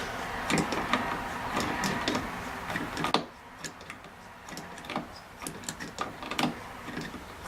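Pliers gripping and twisting a stripped screw in a door hinge, metal clicking and scraping on the screw head. A busier stretch for about the first three seconds, then scattered ticks.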